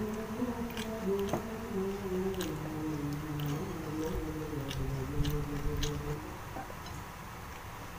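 A low voice humming a slow tune in held notes that stops about six seconds in, with small wet clicks of chewing and of fingers working the food.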